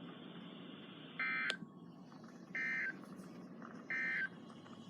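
Emergency Alert System end-of-message signal: three short, identical bursts of SAME digital data warble, about 1.4 s apart, over a faint steady radio hiss. They mark the end of the warning. A sharp click falls just after the first burst.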